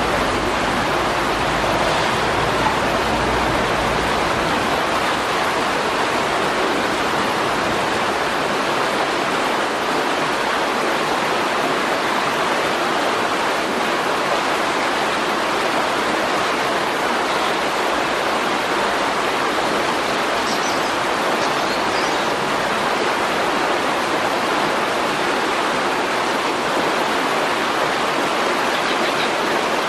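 Shallow river water rushing steadily over a stony riffle.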